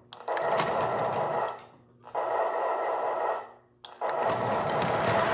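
Diesel locomotive sound effects from the sound board in a Lionel Southern Pacific boxcar, played through its small speaker. The sound cuts out twice, each time coming back with a click, then runs on steadily and grows louder near the end.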